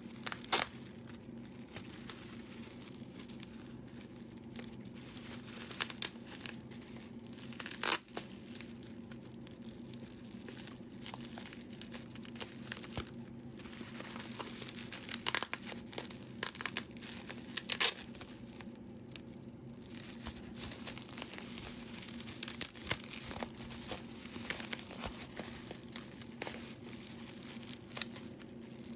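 Crinkling and tearing of packaging being handled and opened, with scattered sharp clicks and rustles over a steady low hum.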